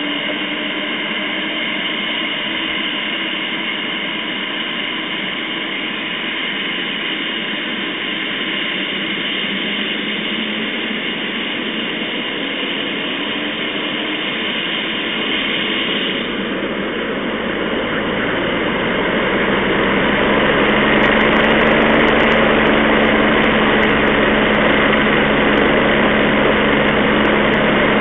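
Rescue helicopter's turbine engine running on the ground with a steady whine, then about two-thirds of the way in spooling up, growing louder and deeper as it powers up for takeoff. Heard through an old phone's microphone, thin and without any high end.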